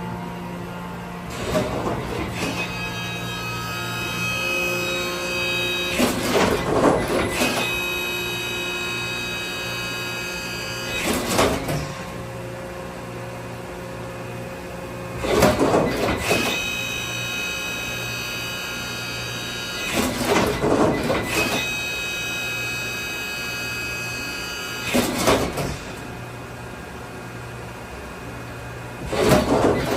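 Brother Speedio R650X1 CNC drilling and tapping center running a machining cycle: a steady machine hum under a spindle whine of several high tones that starts and stops, broken about every four to five seconds by a short, loud, noisy burst.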